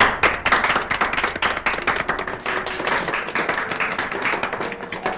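Audience applauding: many hands clapping at once in a dense, steady patter that eases slightly toward the end.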